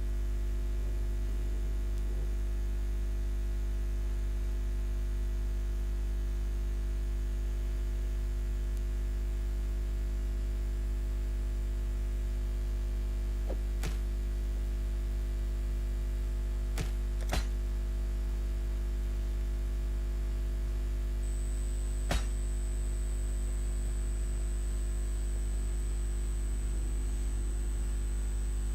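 Steady low electrical hum with a few sharp clicks, and a thin high-pitched whine that starts about two-thirds of the way through.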